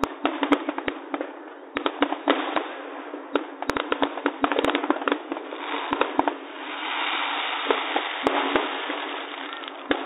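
Aerial fireworks shells bursting in rapid succession: many sharp bangs, some in quick clusters, over continuous crackling. About two-thirds through there is a couple of seconds of steadier hiss and crackle.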